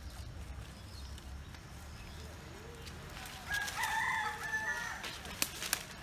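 A rooster crowing once, a long call a little past the middle, followed by two sharp clicks near the end.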